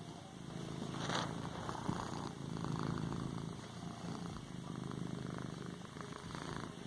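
Domestic cat purring steadily while kneading a pillow, with a brief rustle about a second in.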